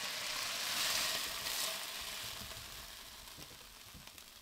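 Beef strips sizzling in a hot frying pan, the sizzle fading away steadily as the pan comes off the heat, with a few faint knocks near the end as the strips are tipped into a metal sieve.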